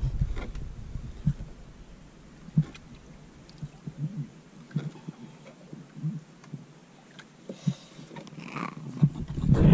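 Wind buffeting the microphone fades away in the first two seconds, leaving a quiet stretch with scattered soft knocks and taps; the wind noise rises again near the end.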